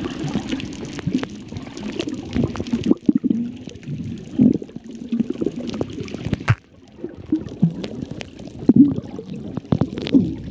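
Water gurgling and bubbling, heard underwater, with scattered sharp clicks.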